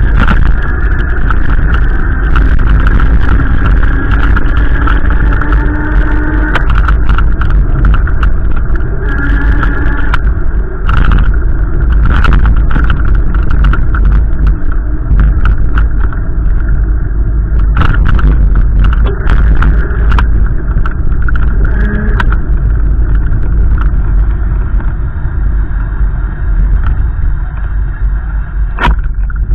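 Strong wind buffeting the microphone in a loud, unbroken rumble, with a vehicle engine humming underneath, its pitch rising slowly at times.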